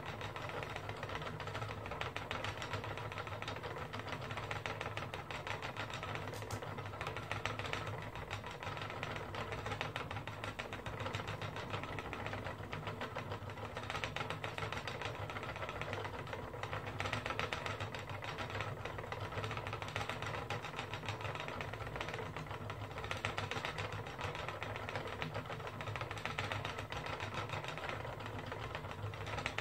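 Wooden spinning wheel running steadily as yarn is spun: a continuous rapid clicking and whirring from the turning flyer and bobbin.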